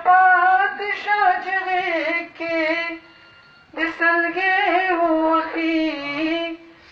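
A man singing a ghazal in tarannum, the melodic chanted style of recitation, with no accompaniment. He sings two long phrases with held, wavering notes and pauses briefly about three seconds in.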